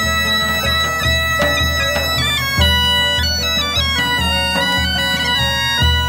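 Bagpipe music: a melody stepping in pitch over a steady drone, with a regular drumbeat about twice a second.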